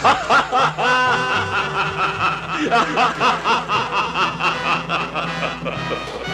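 A person laughing in a long, rapid run of high-pitched ha-ha pulses, about three a second.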